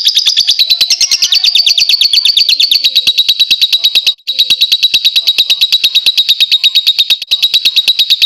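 Lovebird's ngekek song: a long, fast, even run of sharp, high chattering notes. The run breaks off for an instant about four seconds in and then carries straight on.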